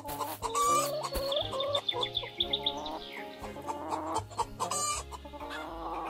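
Chickens clucking again and again, over light background music.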